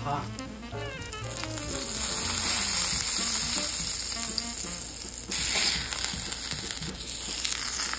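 Butter sizzling in a hot nonstick skillet as buttered English muffin halves toast face-down. The sizzle swells about two seconds in.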